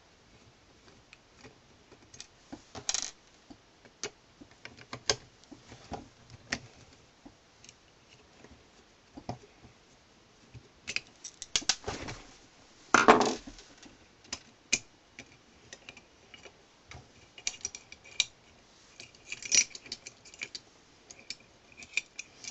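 Small metal parts of an ERA Invincible 5-lever mortice lock clicking and clinking as the lock is taken apart by hand. Scattered light clicks, a louder clatter about halfway through, and a few ringing metallic clinks near the end.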